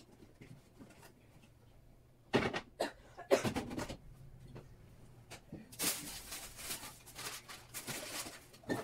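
Groceries being put away in a refrigerator: two sharp knocks about a second apart, then a few seconds of rustling packaging and light clatter.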